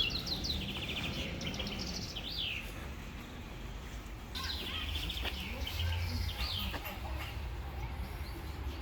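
Small songbirds chirping and trilling in two bouts of rapid high notes, each lasting about two and a half seconds, over a low steady background rumble.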